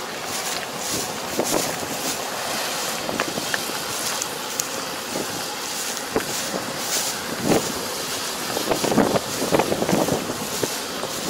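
Kubota ER470 four-row combine harvester running steadily, with a few louder rustles and knocks in the last few seconds.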